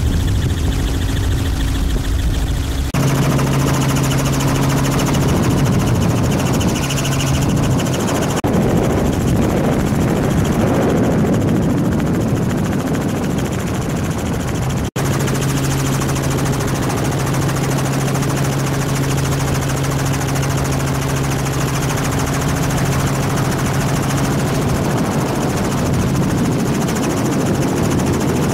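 Helicopter rotor and engine noise heard from aboard the aircraft: a steady, loud drone with a low hum, with a brief dropout about halfway through.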